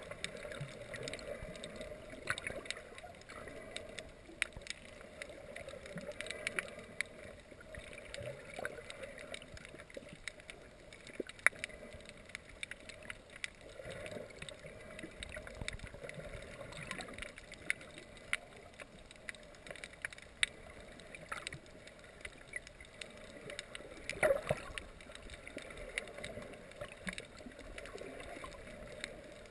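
Underwater ambience picked up through a GoPro's waterproof housing: a muffled, steady water noise with many scattered sharp clicks and crackles, a louder click about 11 seconds in and a cluster about 24 seconds in.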